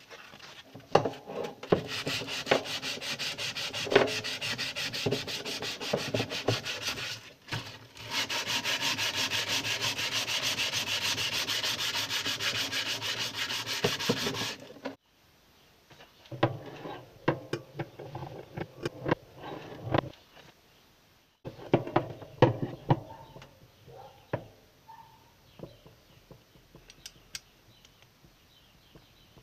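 Sandpaper rubbed by hand over rusty steel tin snips to take off the rust, in fast back-and-forth strokes. The sanding pauses briefly about seven seconds in and stops at about fifteen seconds. After it come scattered knocks, scrapes and clicks as the tools are handled.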